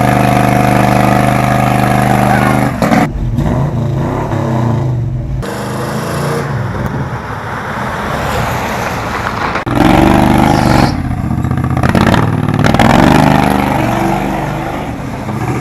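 Car engine running loudly and revving up and down, in several short pieces with abrupt breaks between them.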